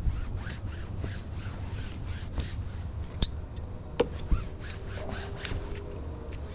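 Cloth rag rubbing and wiping over a wet window screen's mesh and frame in many short, quick strokes, drying it, with a few sharp clicks a little past the middle.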